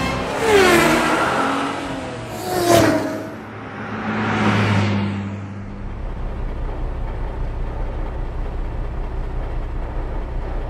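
Car sound effects: an engine revving with squealing glides over the first few seconds, then a steady low engine sound running from about six seconds in.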